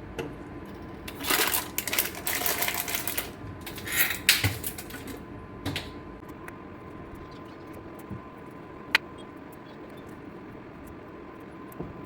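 Knife chopping vegetables on a cutting board: a rapid run of strokes about a second in for about two seconds, another short burst around four seconds, then a few single knocks.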